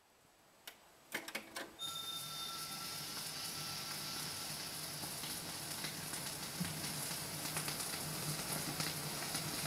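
Surface noise of an old recording: a few sharp clicks in the first two seconds, then steady low hiss with fine crackle.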